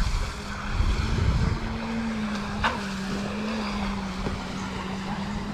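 Battery-electric RC jet boat's motor and jet pump whining at a steady pitch as it runs across the water, the pump holding water rather than sucking air. A low rumble sits under it for the first second and a half, and there is one short click near the middle.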